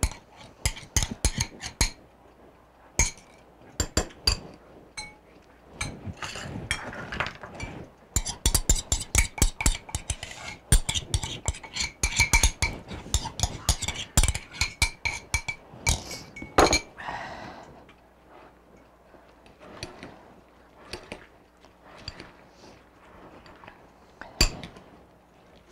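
A spoon clinking and scraping against a ribbed glass mixing bowl as diced apples are stirred into a wet batter. The clinks come in quick runs through the middle and thin out to occasional taps near the end.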